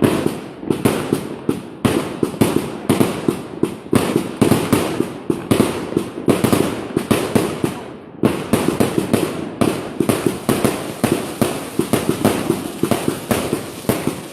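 A consumer fireworks cake firing shot after shot in rapid succession, a dense run of bangs and crackling reports several a second, with a brief lull about eight seconds in.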